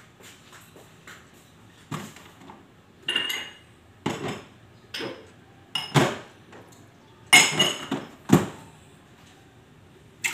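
Dishes and cutlery clattering as they are handled, in irregular clanks and clinks, the loudest a cluster about seven seconds in and another a second later.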